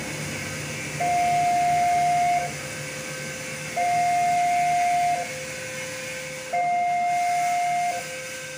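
Railway level-crossing warning alarm sounding, signalling that a train is approaching: an electronic two-tone signal that alternates between a louder high note and a quieter lower note, each held about a second and a half, repeating about three times.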